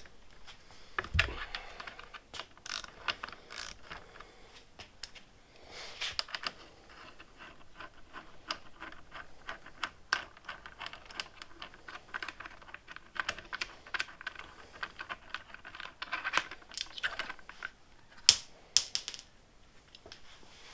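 Irregular small clicks and metallic taps of a screwdriver working the bar-end screw out of a motorcycle handlebar, with the loose bar-end pieces clinking in the hand. A low thump comes about a second in.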